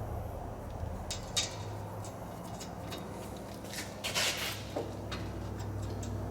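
Scattered light clinks and clicks of hand tools on metal, with one longer scrape about four seconds in, as the A/C condenser's refrigerant line fittings are worked on. A steady low hum sits under them.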